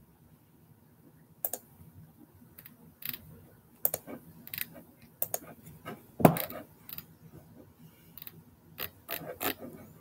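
Computer keyboard typing: irregular, scattered keystrokes with pauses, and one louder knock about six seconds in.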